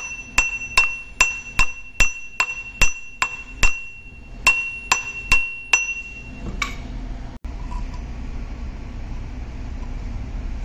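Ball-peen hammer tapping a rusty metal belt pulley onto an electric motor's shaft, about two and a half light blows a second. Each blow leaves the pulley ringing with a high clear tone. The tapping stops about six seconds in, leaving a low steady background noise.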